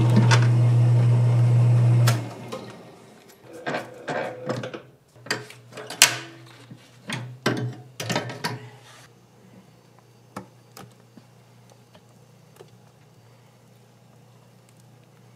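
A steady motor hum cuts off suddenly about two seconds in, then a run of sharp knocks and clatters from food-stall work, ending in a faint steady background hum.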